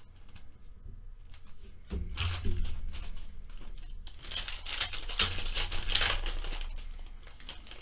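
Foil wrapper of a baseball card pack crinkling and being torn open by hand, starting about two seconds in.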